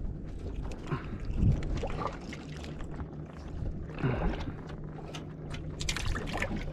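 Wind and water noise on a small fishing boat, with scattered light clicks and knocks. A steady low hum from the electric trolling motor, holding the boat on spot-lock, grows stronger about four seconds in.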